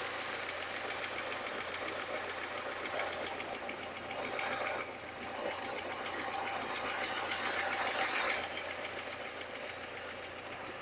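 Chevrolet Niva engine running with a fast, steady knocking tapping, the knock whose cause the owner is trying to find.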